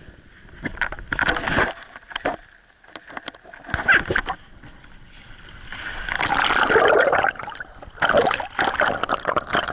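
Water splashing and sloshing in irregular surges, with a longer swell about six seconds in.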